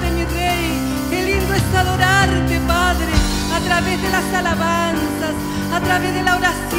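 A woman singing a slow worship song into a handheld microphone over sustained backing chords that shift every second or two.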